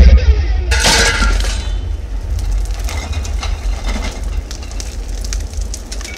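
Glass shattering in a sudden crash just under a second in, over a continuous heavy low rumble, followed by scattered pieces of debris and glass clinking and tinkling down.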